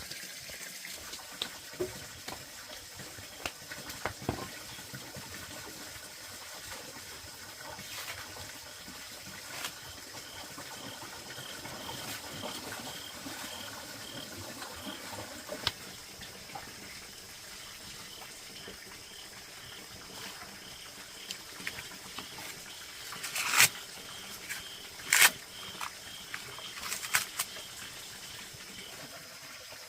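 Water trickling steadily, with a faint high repeated chirp at about two a second midway and a few sharp knocks near the end.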